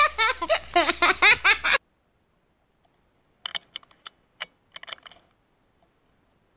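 Laughter for just under two seconds, then cut off sharply. About three and a half seconds in comes a quick series of sharp metallic clicks lasting under two seconds: an air rifle being cocked and a pellet loaded after the shooter forgot to load it.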